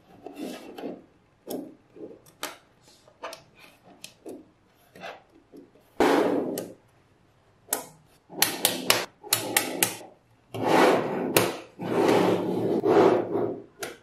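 Small neodymium magnet balls clicking together and rattling against each other and the tabletop as strips of them are snapped into place and slid along. Scattered sharp clicks through the first half, then several longer rattling runs in the second half.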